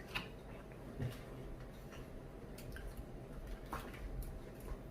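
Low room noise with a few faint clicks of tableware being handled at a meal, about three over a few seconds.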